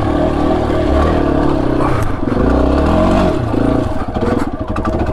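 Yamaha XT250's single-cylinder four-stroke engine revving up and dropping back as the motorcycle picks its way over rocky ground, with short knocks and clatter from the rocks in the later seconds.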